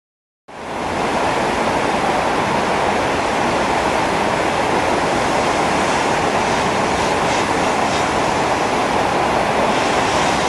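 Floodwater rushing and churning: a loud, steady rush of river water swollen by several days of heavy rain, fading in about half a second in.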